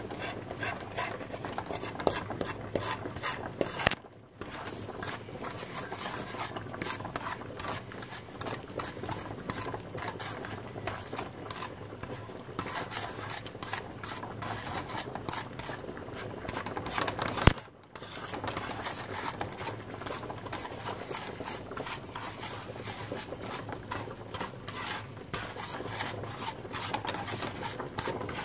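Wooden spatula stirring and scraping dry granulated sugar around a pan, a gritty rasping scrape in quick, irregular strokes. The sugar is still dry and granular as it is heated to brown into caramel. The stirring pauses briefly about four seconds in and again near eighteen seconds, the second pause right after a sharp knock.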